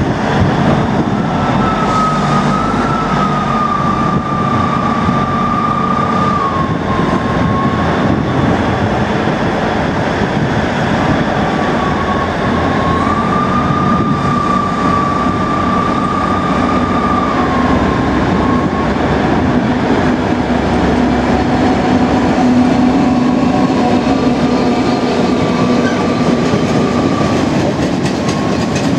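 A Class 66 diesel locomotive, with its EMD two-stroke engine running, hauls a freight train through the station, and the wagons clatter over the rail joints. A high, wavering whine is heard for much of the passage.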